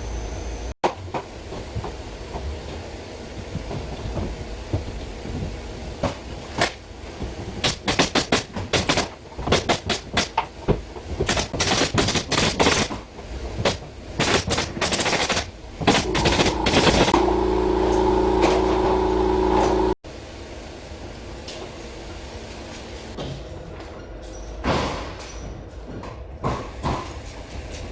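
Ceiling carpentry work: a run of sharp knocks and clicks, then a power tool's motor running steadily for about four seconds before stopping suddenly.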